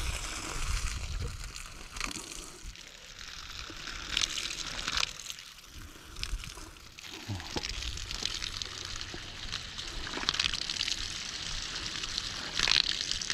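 Spring water piped from a mountain source pouring from an outdoor tap and splashing onto the soil and dead leaves below, a steady running hiss that swells now and then.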